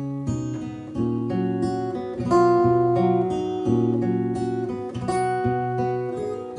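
Acoustic guitar playing an instrumental passage between verses of a folk song: a run of picked notes and chords, each left to ring.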